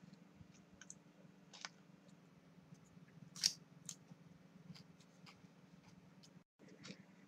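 Quiet room with a steady low hum and a few scattered short clicks, the loudest about three and a half seconds in; the sound cuts out completely for a moment near the end.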